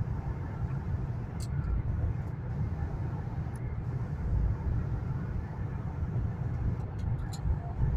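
Cabin noise of a high-speed bullet train cruising at about 280 km/h: a steady low rumble, with a few faint sharp clicks about a second and a half in, near the middle and near the end.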